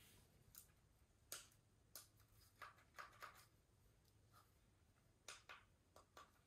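Faint, irregular plastic clicks, about a dozen, as a no-contact infrared thermometer is handled and its trigger pressed. It gives no beep and does not come on, because it has no battery in it.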